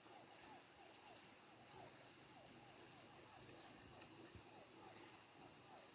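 Faint outdoor chorus of calling insects: a steady high-pitched trill, with a quick run of short lower calls repeating about three times a second.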